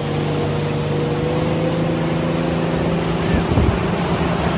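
Motorboat engine running at a steady pitch under load while towing a water skier, over the rush of the wake. A little over three seconds in, the engine hum drops back under choppy wind buffeting on the microphone.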